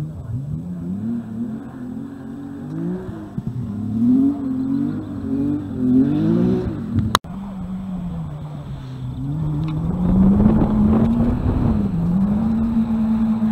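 Rally car engine across the field, its pitch rising and falling again and again as it revs through the gears. A sharp click and brief dropout about seven seconds in, then the engine again, steadier, with a rushing noise that grows louder for a couple of seconds.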